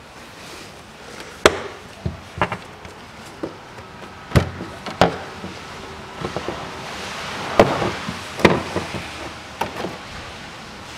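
Plastic engine cover of a Range Rover Evoque being worked loose and pulled up off its push-fit mounts: a series of irregular sharp knocks and clunks.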